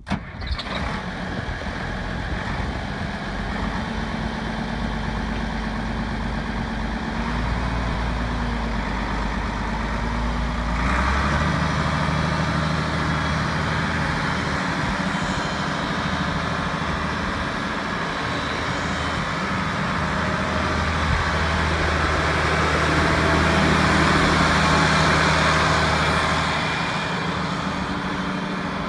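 International 5488 tractor's six-cylinder diesel engine running as the tractor drives around. The engine note steps up about eleven seconds in, grows louder toward the end, then eases off.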